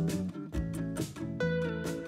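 Background music led by plucked acoustic guitar, with a low beat underneath.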